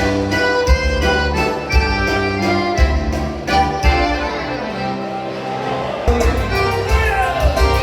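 Music with a steady beat, a bass line and melody instruments. The bass and beat drop out briefly about five seconds in and come back about a second later.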